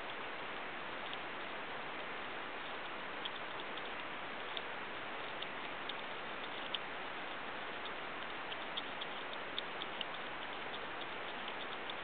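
North American porcupine gnawing kernels off a corn cob: scattered small crisp clicks of its teeth cracking the kernels, more of them in the second half, over a steady hiss.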